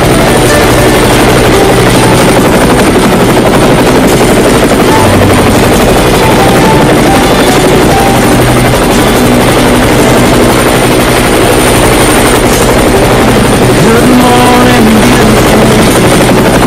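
Helicopter in flight: steady, loud rotor and turbine noise with a fast, even beat of the rotor blades.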